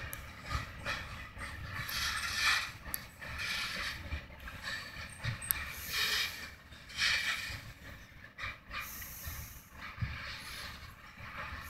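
Freight cars rolling away along the track: steel wheels and running gear creaking and clanking, with metallic squeals swelling and fading every second or two over low thuds.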